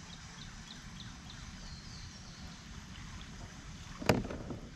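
Quiet outdoor pond ambience: a steady low rumble with faint, evenly spaced high ticks in the first second, and one brief louder sound about four seconds in.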